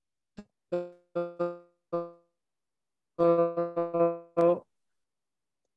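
A voice on a video call breaking up into short, frozen tones that all sit on one pitch, a few single ones and then a quick run, sounding like piano notes. This is a poor internet connection garbling the audio.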